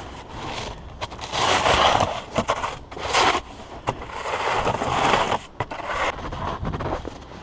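Snow shovel scraping and crunching through heavy snow in several irregular strokes, each about a second long.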